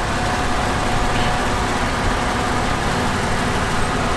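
Off-road 4x4's engine running steadily at low revs, with a faint steady whine over it.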